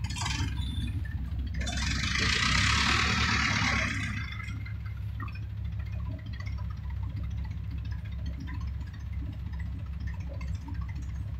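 Mobile crane's engine running steadily with a low rumble, with a loud hiss lasting about two seconds that starts near two seconds in.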